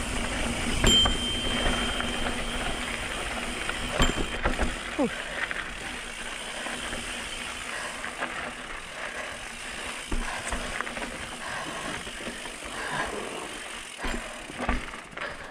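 Mountain bike rolling down a dirt trail: a steady rush of tyre and wind noise, with knocks and rattles over rough ground. There is a brief high-pitched squeal about a second in.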